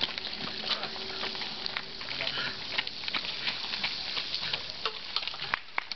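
Water from a garden hose spraying in an arc and pattering onto a wet asphalt road: a steady spatter of many small drops.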